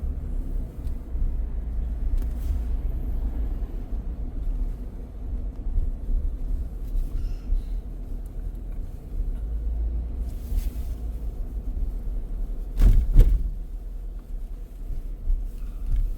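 Steady low rumble of road and engine noise from a car driving slowly, heard from inside the cabin. A single loud thump comes about thirteen seconds in, with a few fainter knocks around it.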